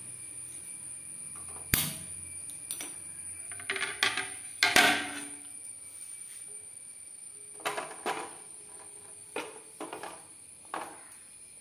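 A single sharp click as the gas stove's burner is lit, then a flat iron tawa set down on the burner grate: a clatter of metal knocks and scraping around four to five seconds in, and a few lighter knocks as it is shifted into place.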